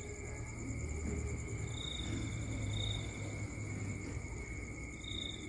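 Night insect chorus: a steady high-pitched trill, with short chirps coming in pairs about a second apart every few seconds, over a low rumble.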